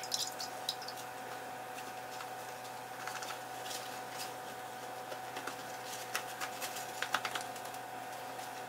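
Paper towel crinkling in light, scattered ticks as it is squeezed around a wet, soaked eggplant to blot it dry, over a faint steady hum.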